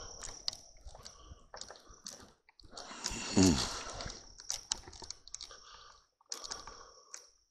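Night insects trilling in one steady high note, with scattered small clicks and crunches throughout. About three seconds in comes a short sound gliding down in pitch, the loudest thing here.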